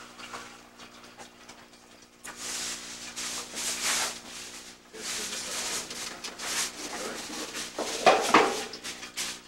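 Rustling, crinkling handling noise that starts about two seconds in, breaks off briefly near the middle, then picks up again and is loudest near the end, over a steady low hum.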